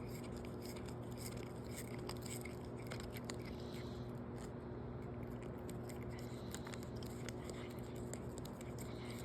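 A cat chewing on a treat: faint, irregular small clicks and crunches over a steady low hum.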